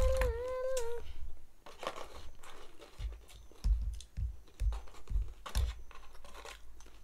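Light clicks and knocks of plastic toy parts being handled, with several dull thumps between about three and six seconds in. A short wavering voice note sounds in the first second.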